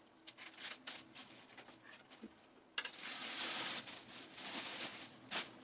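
Thin plastic sheeting crinkling and rustling faintly as it is handled and taped in place, with a denser stretch of rustling about three seconds in.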